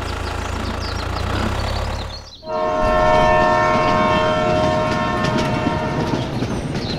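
A tractor engine running steadily, then about two and a half seconds in a train horn sounds one long blast of several notes together, lasting about three and a half seconds over the rumble of a running train.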